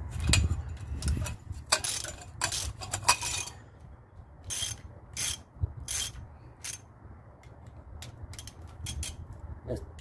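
Socket ratchet clicking as it is swung back and forth on a connecting-rod cap nut. Quick runs of clicks come in the first few seconds, then separate single strokes, thinning to faint ticks near the end.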